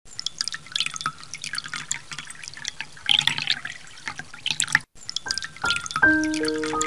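Water drops dripping and splashing into water in many irregular small drips. About five seconds in, a piano starts playing single slow, ringing notes.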